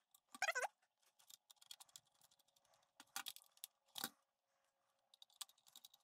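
Faint, irregular small clicks and ticks of a T7 Torx screwdriver turning and seating small screws in the metal heat-sink bracket on a computer logic board, with a brief pitched sound about half a second in.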